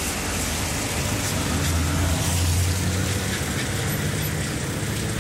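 Street traffic: vehicle engines running and passing, with a low engine rumble that swells about two to three seconds in.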